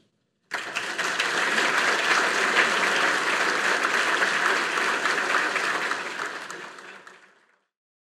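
Audience applauding, starting about half a second in and fading out over the last two seconds.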